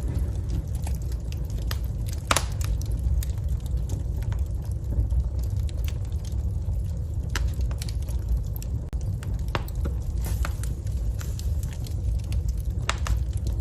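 Wood fire burning in a fireplace, crackling with scattered sharp pops over a steady low rumble of the flames.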